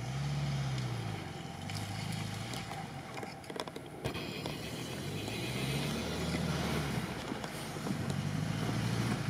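ZAZ-968M Zaporozhets' air-cooled V4 engine revving up and falling back again and again as the car drives slowly off-road.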